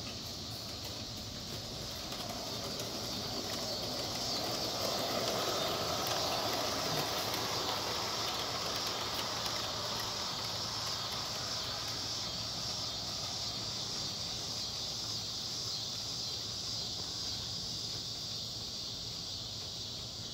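Live steam LGB/Aster Frank S garden-scale locomotive and its cars rolling past on the track, growing louder toward the middle and then fading away. A steady high insect chirring runs underneath.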